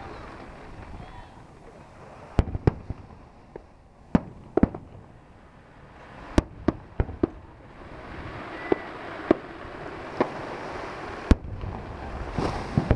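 Fireworks going off: about fifteen sharp bangs at uneven intervals, some in quick pairs and triplets, the loudest one near the end.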